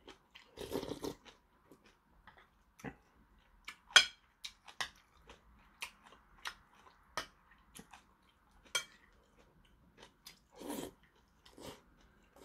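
Close eating sounds of rice-cake and dumpling soup: a man slurping broth and chewing, with sharp clinks of a metal spoon against a porcelain bowl, the loudest about four seconds in. Two longer slurps come near the start and near the end.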